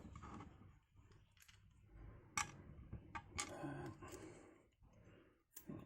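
A few scattered light metal clicks and taps as a padlock and small tools are handled for disassembly, with faint handling noise between them.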